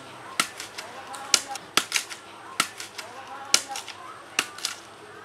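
A heavy knife striking bamboo as it is split into strips: sharp knocks at an uneven pace, about two a second.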